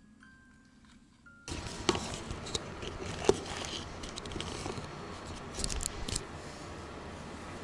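A few faint chime notes stepping in pitch, cut off about a second and a half in. Then kitchen handling noise: a steady hiss with scattered knocks and clicks, the sharpest about three seconds in.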